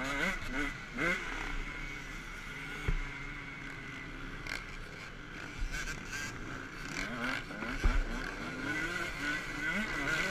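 Motocross bike engine heard onboard, revving up and down over and over as the rider accelerates and shifts on a dirt track. Two sharp knocks stand out, about three seconds in and again near eight seconds.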